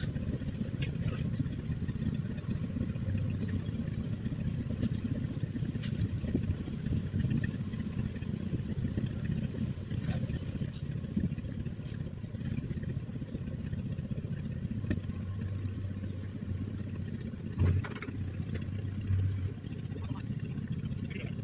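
The engine of a 1955 John Deere 420C crawler, a two-cylinder, runs steadily with scattered light clanks. A steadier low hum comes in from about fifteen seconds, with a sharp knock near eighteen seconds.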